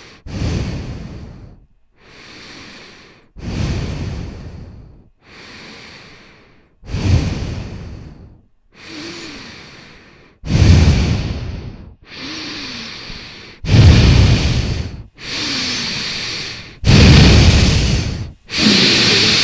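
Heavy breathing right against the microphone: slow, deep breaths in and out, about six full breaths, each a long noisy rush. The breaths grow louder toward the end.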